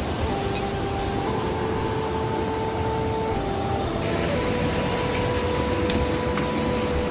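Steady rush of a mountain stream flowing over rocks. Slow background music of long held notes plays over it, stepping to a new note every second or two.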